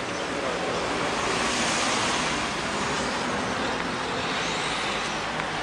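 Street traffic: a car passing, its tyre and engine noise swelling and then fading.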